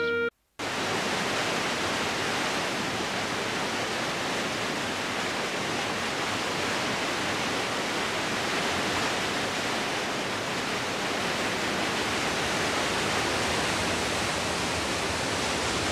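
A mountain stream rushing over rapids and a small waterfall. It makes a steady, even white-water rush that starts about half a second in, after a brief silence.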